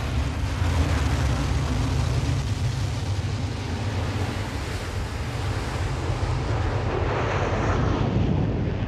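F-35 fighter jet engine running at high thrust: a steady loud roar with a deep rumble, swelling briefly near the end.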